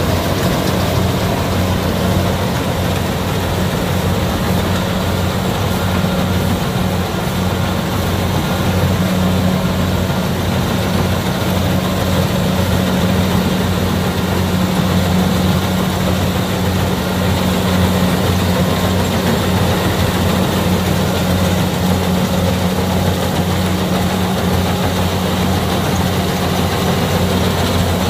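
Kubota DC68G combine harvester's diesel engine running steadily, a constant low hum with an even mechanical rumble and no changes in pitch.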